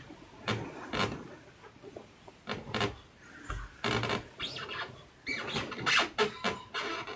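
Irregular rustling and rubbing noises, a scatter of short scratchy bursts with no steady rhythm, busiest in the second half.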